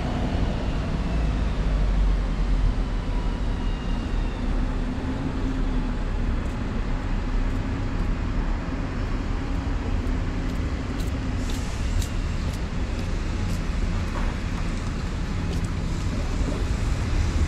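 Urban road traffic around a bus station: a steady low rumble of bus and car engines, with a steady engine drone that stops about twelve seconds in.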